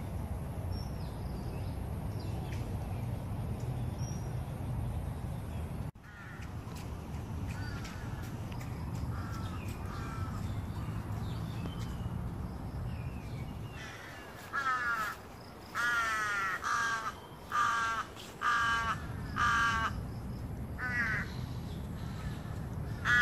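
A crow cawing: a run of about nine loud, harsh caws, roughly one a second, through the second half, with faint smaller bird chirps before it. A low rumble fills the first six seconds.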